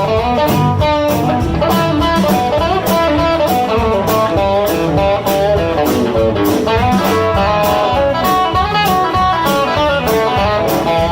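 Live blues band playing an instrumental break: an electric guitar takes the lead with bending notes over a steady drum beat and bass.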